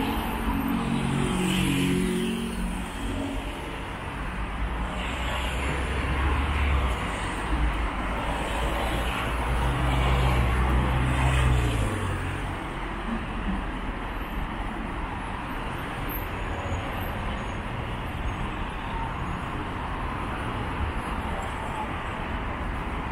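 City street traffic: car engines running and passing, with one vehicle's low engine rumble close by, loudest from about five to twelve seconds in.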